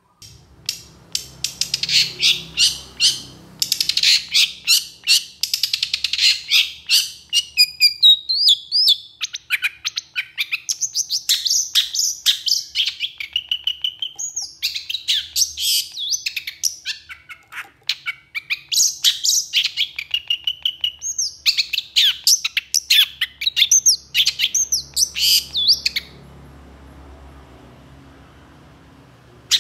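Long-tailed shrike singing: a fast, harsh run of rapid-fire notes at first, then varied phrases of quick rising and falling whistled notes in long bursts. It stops about 26 seconds in.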